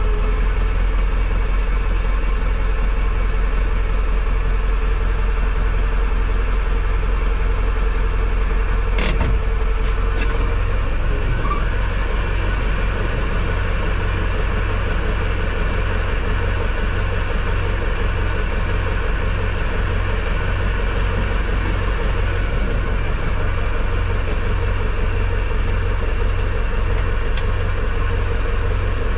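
Tractor engine idling steadily, heard from inside its cab, with one sharp click about nine seconds in.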